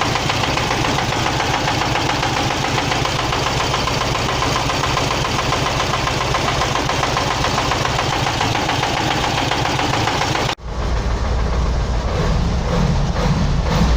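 VW Beetle 1600's air-cooled flat-four engine running with a steady rattling clatter. About ten seconds in, the sound drops out for an instant and comes back deeper and heavier.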